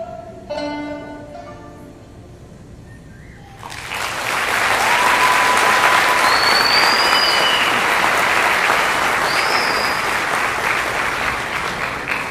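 The last plucked-string notes of Arabic dance music end. About three and a half seconds in, an audience breaks into loud applause that goes on steadily, with a few high whistles over it.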